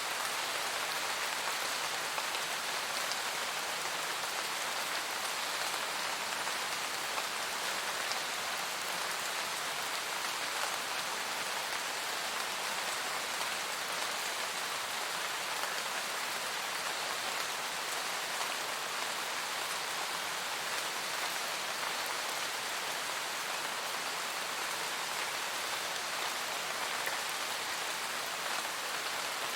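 Steady rain falling in a forest, with a dense, even hiss of raindrops pattering on leaves and the ground.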